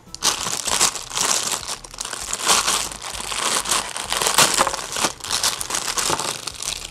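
Thin clear plastic bag crinkling as small toy figures are worked out of it by hand: a dense, continuous rustle with many sharp crackles.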